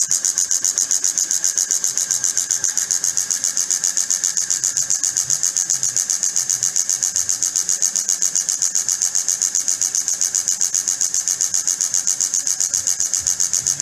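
Motor-driven oil friction tester running under a stack of load weights: the spinning test part rubs against the loaded block in the oil with a steady hissing scrape that pulses about six or seven times a second.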